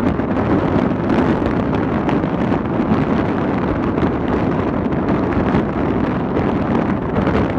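Wind buffeting the microphone: a steady, even rush of noise without letup.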